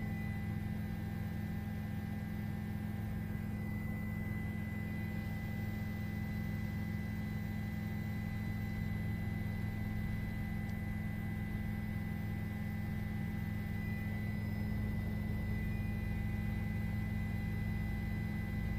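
Steady low drone of helicopter cabin noise heard through the crew's intercom, with a few faint steady tones above it.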